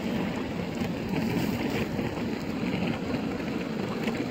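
Inline skate wheels rolling over asphalt, making a steady rolling noise.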